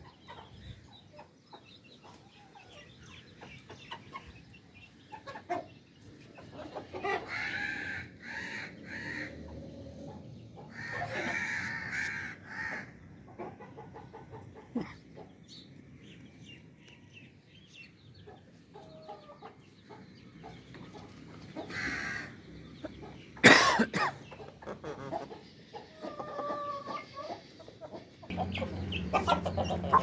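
Chickens clucking and calling in short separate bouts, with one loud sharp knock about two-thirds of the way through.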